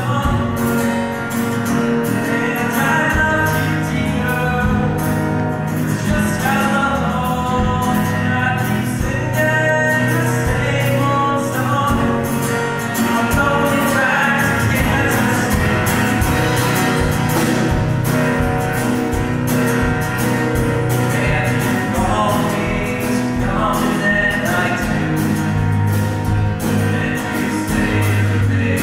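A small live band playing a song: upright bass, electric guitar, acoustic guitar and drum kit, with a man singing lead at a microphone over a steady beat.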